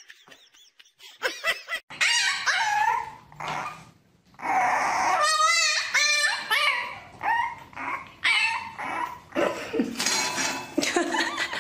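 A puppy yapping and whining in high, wavering yelps, coming in bursts from about two seconds in.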